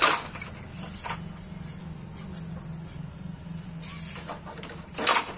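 Wooden handloom being worked: sharp wooden clacks as the batten is beaten against the woven cloth, a loud one at the start and another about five seconds in, with softer knocks and rattles of the loom's frame between.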